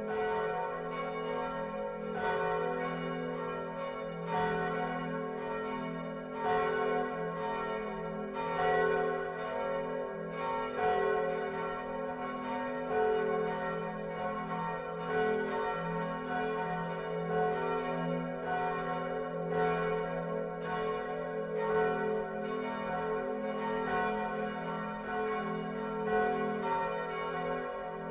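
Swinging peal of the Utrecht Dom tower's large bronze church bells, the biggest cast by Geryt van Wou in 1505, hung on straight headstocks with flying clappers. Many bells strike in an overlapping, uneven tumble, several strokes a second, over a deep sustained hum.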